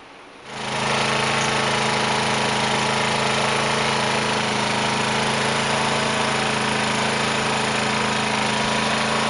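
Honda 2000-watt portable generator running steadily under load, powering the mini-split heat pump. It cuts in abruptly about half a second in with an even engine hum.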